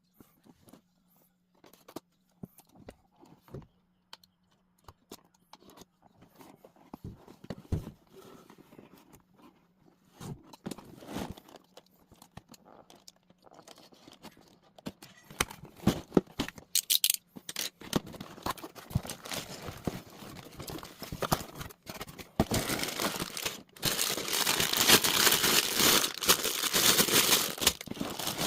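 Unboxing a LEGO set: scattered small clicks and taps of cardboard and parts at first, then, from about two-thirds of the way through, plastic parts bags being crinkled and torn open, loud and continuous.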